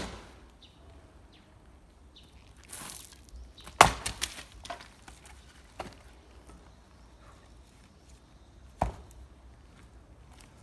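Axe strikes splitting firewood logs outdoors: a loud, sharp chop about four seconds in, followed by a few lighter knocks, and a second chop near the end.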